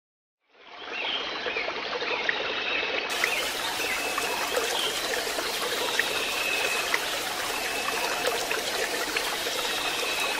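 Steady running water like a stream, fading in about half a second in, with faint short high chirping tones over it.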